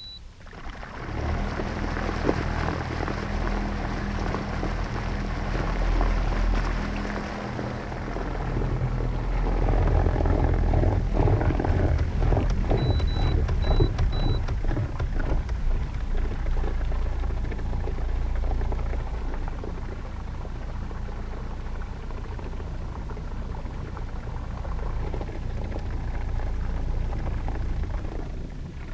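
A 21-foot Crooked Pilothouse boat's outboard engine starting up about a second in and running under power, the propeller churning water, as the hull is worked free of a shallow seagrass bank where it had run aground. Three short electronic beeps sound about thirteen seconds in.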